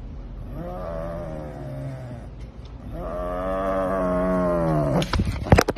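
Serval, with a whole raw chicken in its mouth, giving two long low moaning growls, the second longer and louder. A few sharp clicks follow near the end.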